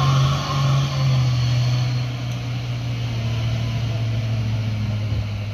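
Heavy diesel truck engine running under load on a steep climb, a steady low drone. Its revs drop slightly about a second in, and it grows a little fainter over the last few seconds.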